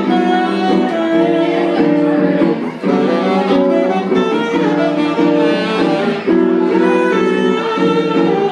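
Tenor saxophone playing a live jazz melody in long, held phrases over guitar accompaniment.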